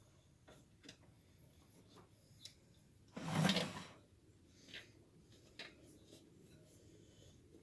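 Hands working a dirt bike tire and its insert onto the wheel rim: scattered small taps and clicks, with one louder rubbing scrape of rubber lasting under a second about three seconds in.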